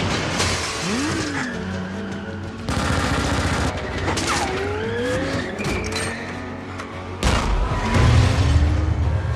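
Action-movie sound mix: a supercar's engine revving in rising sweeps as the car smashes through a building's interior, with crashes and flying debris over a music score. The heaviest crash comes about seven seconds in.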